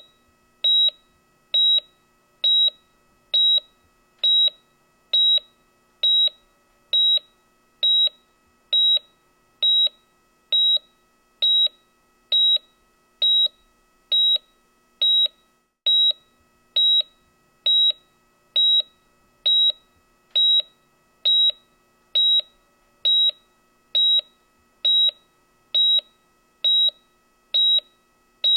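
Hospital heart monitor beeping steadily: one short, high, single-pitch beep a little more than once a second, each beep marking a heartbeat at a regular pace of about seventy a minute. A faint steady hum lies beneath.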